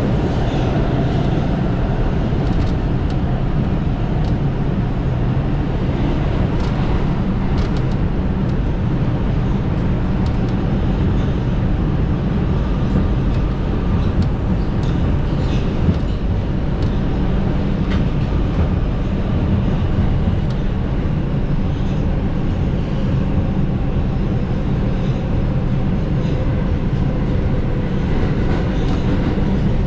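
New York City subway train running at speed, heard aboard: a steady, loud rumble of wheels on rails with faint clicks now and then.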